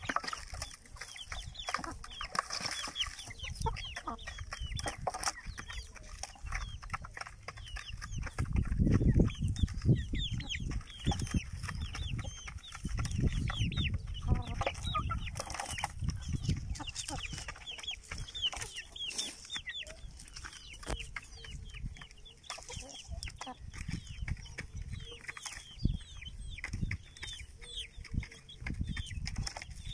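Country chickens, hens and chicks, clucking and peeping as they peck grain from a feeding basin: a steady stream of short, high, falling peeps over the hens' clucks. Bursts of low rumble come and go, the loudest about nine seconds in.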